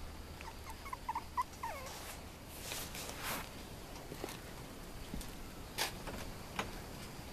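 Silky Terrier puppy whimpering: about six short, high squeaks, some falling in pitch, in the first two seconds. Then shuffling and a few light taps as shoes move on the brick patio.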